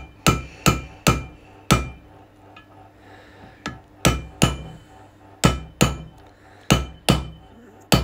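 Hammer tapping the back of a 3/8 socket to drive valve stem seals down onto the valve guides of a Toyota 3UZ V8 aluminium cylinder head. Sharp metallic taps in runs of three or four, about two or three a second, with short pauses between runs and a brief ring after each tap.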